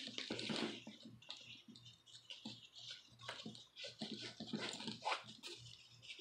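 Handling noise from adjusting a duffle bag's shoulder strap: the strap sliding and rubbing through its buckle, with a quick, irregular string of small clicks and rustles.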